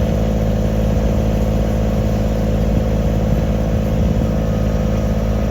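Farm tractor engine running at a steady speed, an even, unchanging drone.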